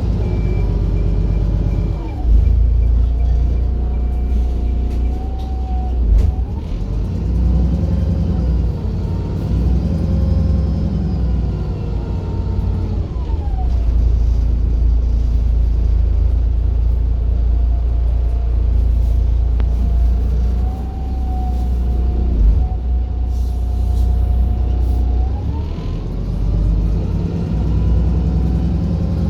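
Wright Pulsar single-deck bus running on the road: a heavy engine rumble under a drivetrain whine that rises and falls in pitch several times as the bus speeds up and slows.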